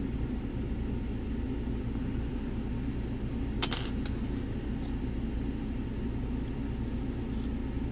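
Steady low background rumble, with one sharp metallic clink of lockpicking tools about three and a half seconds in and a few faint ticks.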